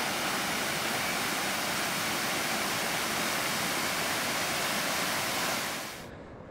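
Steady rushing and splashing of a narrow waterfall pouring down a rock face; the sound fades out near the end.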